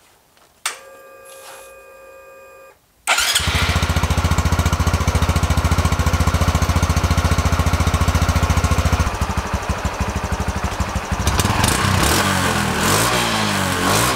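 Stock 2021 Honda Trail 125's single-cylinder 125 cc engine starting, heard close at its stock exhaust with the spark arrestor fitted. A faint steady hum lasts about two seconds, then the engine catches suddenly about three seconds in and runs at a fast even idle, which eases off about nine seconds in.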